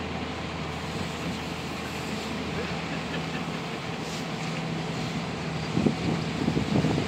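Engine of a small fishing boat running steadily at speed as it passes, a low hum, over wind and surf noise.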